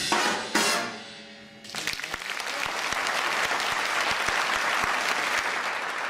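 A jazz big band's closing chord, with brass and cymbals, hit about half a second in and ringing out. From about a second and a half in, the audience applauds, steady at first and then fading.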